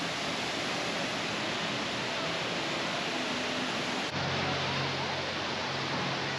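Steady rush of falling water with the faint chatter of a crowd of swimmers, the open-air ambience of a water park wave pool. The sound changes abruptly about four seconds in.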